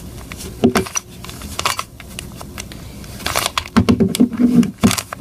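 Plastic Rubik's Cube layers being turned by hand: a string of quick clicks and rasps, one for each face turn, as the same move sequence is repeated. A short low hum-like voice sound comes about four seconds in.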